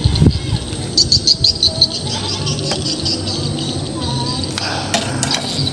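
Insects chirping in rapid high pulses, clearest from about one to two seconds in, over a low steady hum. A small hooked fish knocks against the wooden boat deck at the start.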